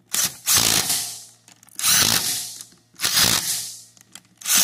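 Cordless impact driver with a 13 mm socket hammering down the gearbox faceplate's mounting bolts on a pressure-washer pump: four bursts of about a second each, the last starting near the end.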